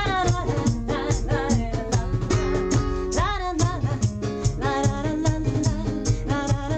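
Live acoustic music: a woman singing over a strummed acoustic guitar, with hand drums keeping a steady beat.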